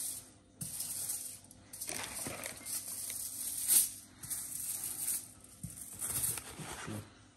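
A block of garlic butter in its paper wrapper rubbed back and forth over a sheet of aluminium foil, making a crinkly rustling scrape in about six strokes of roughly a second each.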